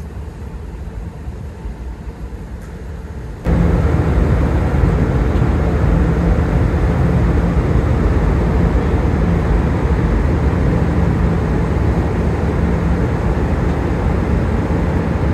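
Steady low engine drone with a faint hum, heavy machinery running on the offshore vessels; it jumps louder about three and a half seconds in and then holds steady.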